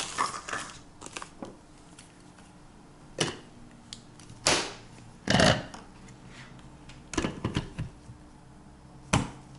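A handful of separate plastic clicks and knocks from a hand blender's chopper attachment, its bowl holding whole hazelnuts and almonds, as the lid is fitted and the motor unit is set on top. The loudest knock comes about halfway through. The blender is not running yet.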